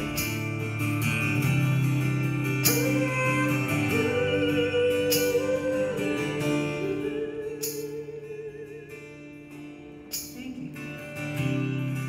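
A song with a singing voice and guitar. Held notes waver in pitch, and a sharp accent falls about every two and a half seconds. The music drops in level about ten seconds in, then swells again.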